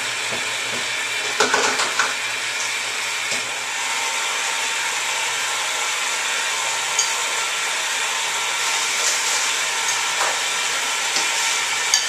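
Electric ice cream maker's motor running steadily, turning the canister in its ice-and-rock-salt bucket with a low hum and a mechanical rattle. Ice cubes clatter into the bucket about a second and a half in, and there are a few more clinks near the end.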